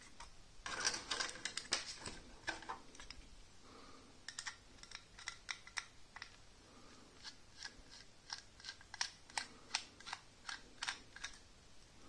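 Small metal clicks and taps from handling an aluminium M.2 SSD enclosure and working a precision screwdriver on the screw at its end: a quick flurry about a second in, then single clicks two or three a second.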